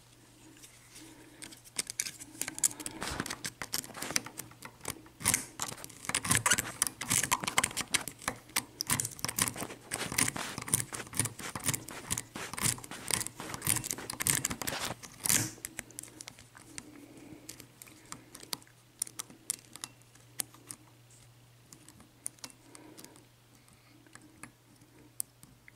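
Quick small clicks and rattles of a padlock being handled, dense for the first fifteen seconds or so, then only an occasional click.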